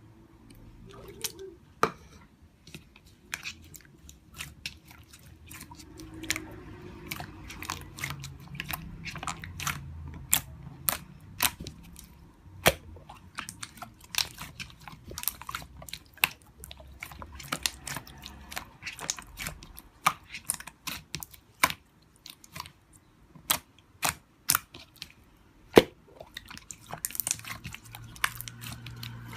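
Close-up crunchy chewing: many sharp, irregular crunches and clicks, sometimes several a second, over a faint low rumble.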